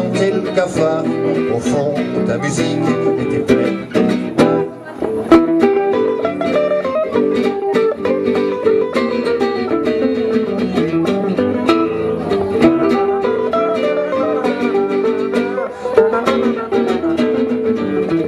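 Duet of an acoustic guitar and an archtop electric guitar playing an instrumental passage, with steady strummed chords under picked melody notes.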